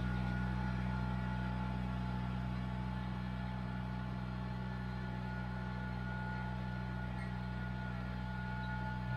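Kubota BX1850 compact tractor's three-cylinder diesel engine running at a steady speed as the tractor drives away, slowly growing fainter.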